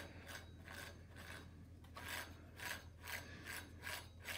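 Hands working on a small air compressor's belt drive: a faint, uneven run of soft clicks and scrapes, about two a second, from the pulley, new belt and metal belt guard being handled.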